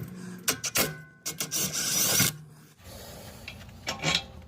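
Ratchet wrench clicking as a loosened brake caliper bracket bolt is backed out: a few separate clicks, then a dense rasping run of clicks lasting about a second, then fainter scattered ticks.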